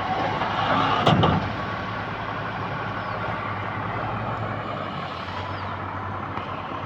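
Heavy diesel machinery engine running steadily, with one loud metallic clank and thud about a second in.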